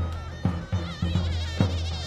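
Davul and zurna playing a halay dance tune: the big double-headed drum beats a steady pulse of about two strokes a second under the wavering, ornamented melody of the zurna.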